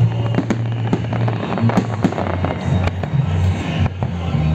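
Fireworks salute going off in rapid succession, a string of sharp bangs, with music playing underneath.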